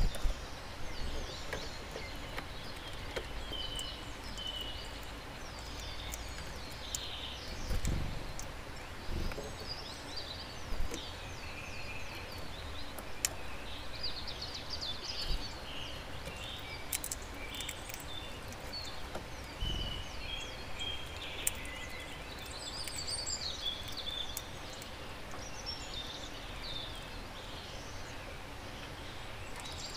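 Small songbirds chirping and twittering at a garden bird feeder, with scattered sharp clicks and two dull low thumps, about 8 and 20 seconds in.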